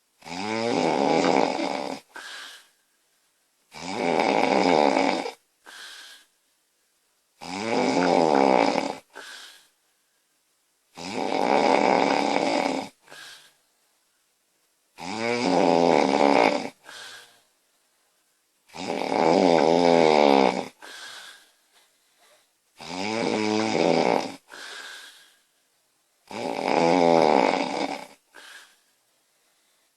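A woman snoring loudly and regularly, about eight fluttering snores of around two seconds each, spaced roughly four seconds apart. Each snore is followed by a short, softer sound.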